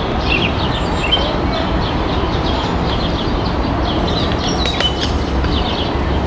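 Many small birds chirping over a steady low rumble of city traffic, with a couple of sharp clicks a little under five seconds in.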